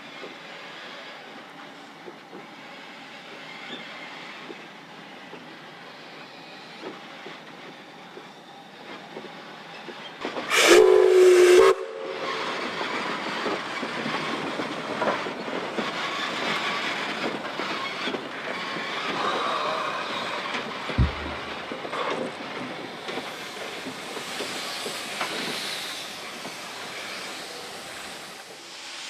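Steam locomotive running with its train. A single short blast of its steam whistle comes about ten seconds in, and after it the running noise grows louder as the train comes closer.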